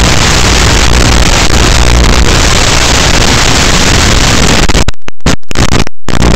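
Loud, steady static hiss with a low hum from an analog FPV drone video receiver, cutting out to silence several times in quick succession about five seconds in.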